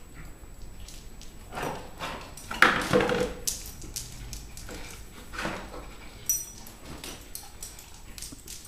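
A Weimaraner nosing and licking out his food bowl on a step stool, the bowl knocking and scraping in scattered bumps, the loudest clatter about two and a half seconds in.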